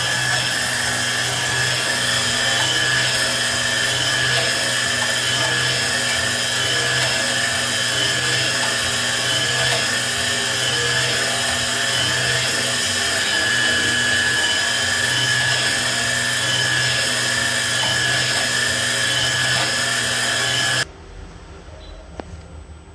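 High-speed spindle of a CNC jewellery engraving and cutting machine running with a steady high whine, under a lower hum that pulses about once a second. It stops abruptly near the end.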